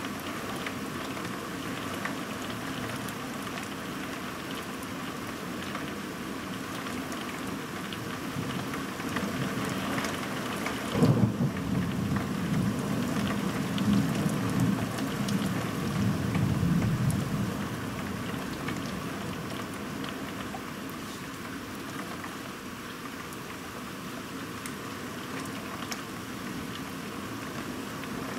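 Heavy rain falling steadily during a thunderstorm. About eleven seconds in, thunder breaks with a sharp crack, then rumbles for about six seconds before fading back under the rain.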